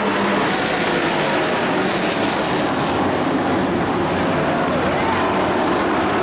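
Race truck engines running hard at speed around a dirt oval, a steady loud drone with the pitch sliding as trucks pass.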